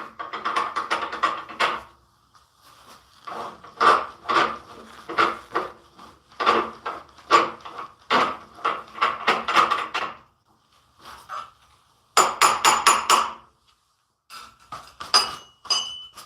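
Quick, sharp knocks and clatter from woodworking tools, several a second, coming in five bursts with short pauses between them.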